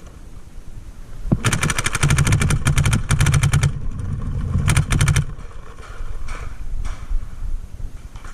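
Paintball marker firing rapidly, about a dozen shots a second in a string lasting about two seconds, then a shorter burst a second later and a couple of fainter single shots near the end.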